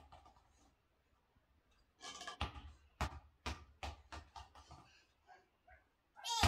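Small soccer ball bouncing on a ceramic tile floor, about two bounces a second for a few seconds. A short vocal cry falling in pitch comes near the end.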